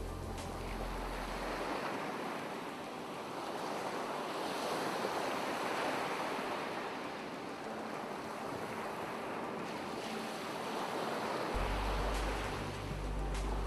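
Ocean surf washing onto a shore, a steady rush of breaking waves that swells and ebbs slowly. A low steady hum sits under it at the start and returns near the end.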